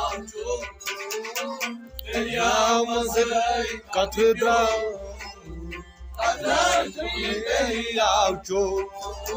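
Traditional Kashmiri folk song: a man singing in long, wavering phrases, accompanied by a harmonium and bowed string instruments over a low pulsing beat that drops out for about a second near the start.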